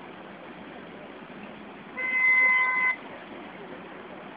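A single horn toot, one steady tone about a second long, sounding about two seconds in over a constant background hiss.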